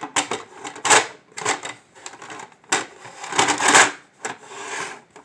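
Hard plastic toy tunnel and track pieces knocking and clattering against each other and the table as they are handled and set in place: a string of irregular clacks, with the longest rattle about three and a half seconds in.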